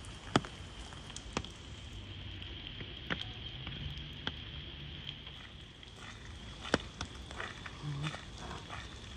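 Light rain with a steady hiss over wet ground, and a handful of sharp, irregular taps of large drops falling close by.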